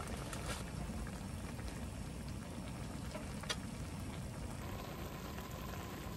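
A pot of broth bubbling on the boil, a steady watery bubbling with a few light clicks. A faint steady tone joins about two-thirds of the way in.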